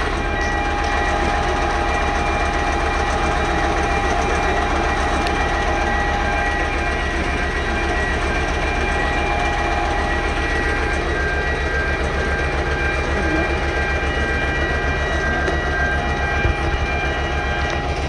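Building fire alarm sounding continuously: a loud, steady high ringing with a fast, even rattle beneath it.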